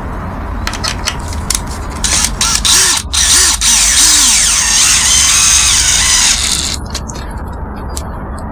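Cordless drill driving screws through an oak trim board into plugged holes in a concrete-block wall: a few short clicks first, then about four seconds of the motor running under load, its pitch rising and falling.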